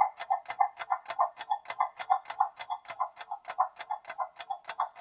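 Countdown-timer sound effect: a clock ticking rapidly and evenly while the quiz timer runs down.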